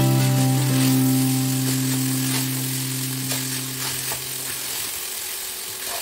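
Wooden spatula stirring and tossing cooked rice in a non-stick pan, with a steady sizzling hiss from the hot tempering oil being mixed through it and light scraping strokes against the pan.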